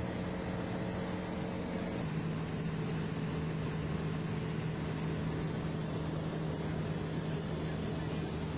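Single-engine light aircraft's piston engine and propeller droning steadily as heard inside the cockpit in flight. The hum drops to a slightly lower pitch about two seconds in.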